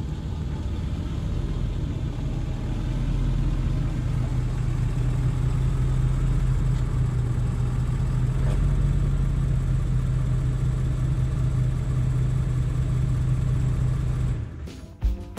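Pickup truck engine idling steadily with a low, even hum, stopping about fourteen seconds in.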